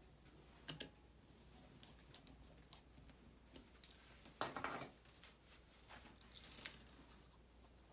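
Faint handling noises of small repair work on an opened 12-inch MacBook's trackpad area: a light tick about a second in, then two short scuffs about halfway through and near the end.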